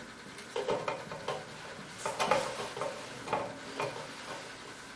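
Wire connectors being unplugged from a heat press's motherboard: a handful of short, separate clicks and rustles.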